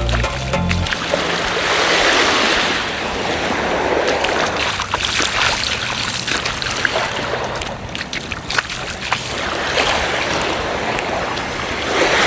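Small waves breaking and washing up on a beach, swelling and fading every few seconds. Music runs out about a second in.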